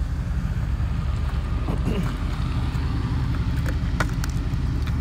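Car engine running steadily with a low rumble, with a few sharp clicks about four seconds in.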